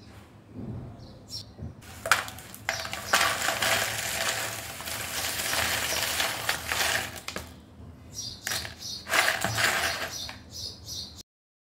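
Crisp deep-fried banana chips clattering and rustling as they slide off a plate into a plastic bowl: one long pour, then a shorter one. The sound cuts off abruptly near the end.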